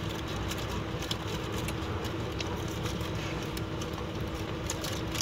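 Chewing a mouthful of chili cheeseburger, with faint crinkles of the foil wrapper, over a steady car-cabin hum that holds one constant tone.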